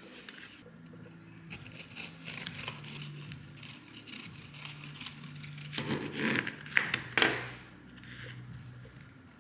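Kitchen utensils scraping and clicking during food preparation, a run of light clicks and scrapes with the loudest scraping about six to seven seconds in, over a faint steady hum.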